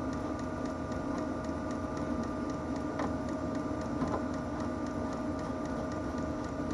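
Running 5 kW Vevor diesel heater: a steady blower hum with a faint even ticking several times a second, typical of its fuel pump pulsing. Two faint plastic clicks about three and four seconds in as the fuel tank's screw cap is turned.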